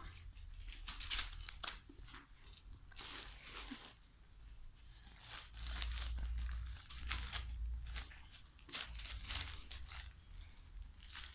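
Irregular crinkling and crunching as American Hairless Terrier puppies scramble and chew among sheets of newspaper, with a low rumble on the microphone for a couple of seconds around the middle.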